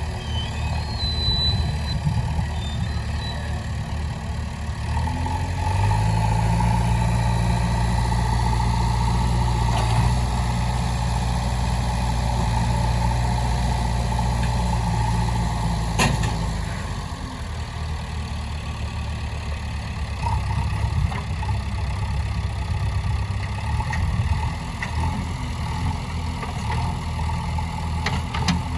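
JCB 3DX backhoe loader's diesel engine idling, raised to a higher steady speed about six seconds in for roughly ten seconds, then dropping back to idle after a sharp click.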